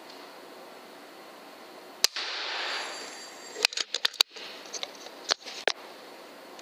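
FX Impact .25 PCP air rifle firing once, a sharp crack about two seconds in followed by a second and a half of hissing noise. A string of sharp clicks and knocks follows.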